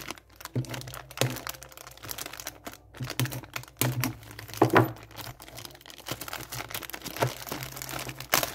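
Clear plastic bag crinkling and crackling as small hard plastic model-kit tyres are handled in it, with a few louder clicks and rustles.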